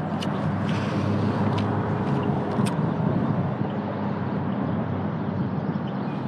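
Steady low hum under an even rushing noise, with a few faint clicks.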